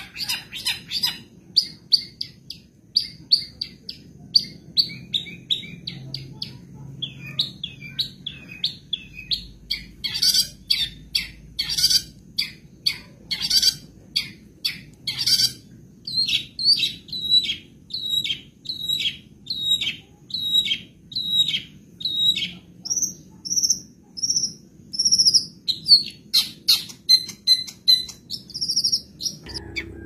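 Long-tailed shrike (cendet) singing a long, varied song of quick short chirps and trills. Partway through it repeats a downward-sliding note about twice a second, then shifts to higher notes. Its song is full of mimicked calls of other birds.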